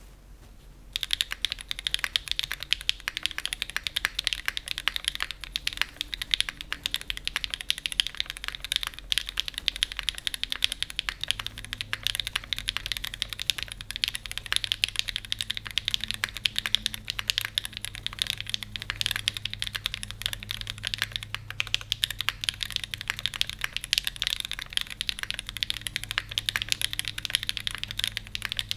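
Continuous fast typing on a Cloudline V2 custom mechanical keyboard with factory-lubed Gateron Deepping switches and GMK keycaps, with an aluminium plate in an O-ring mount and no foam dampening. The keystrokes start about a second in and run on as a dense stream of clacks.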